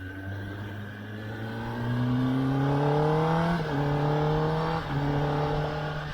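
2021 Kawasaki ZX-10R's inline-four engine accelerating, its revs climbing steadily, then dropping sharply about two-thirds of the way in on an upshift. It then runs at a steady pitch with a brief break before easing off near the end.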